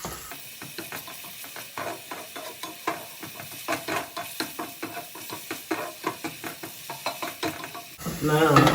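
A utensil stirring and turning diced onion in a hot cast iron skillet, with quick irregular clicks and scrapes against the pan, several a second, over the sizzle of the onion frying in olive oil.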